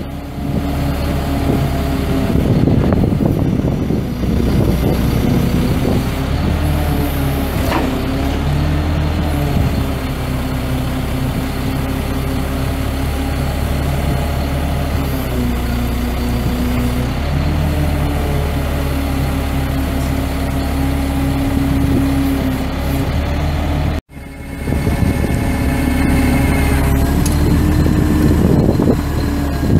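Caterpillar C7 inline-six turbo diesel of a 2005 GMC C7500 bucket truck running, its engine speed stepping up and down several times. The sound breaks off for an instant about three-quarters of the way through.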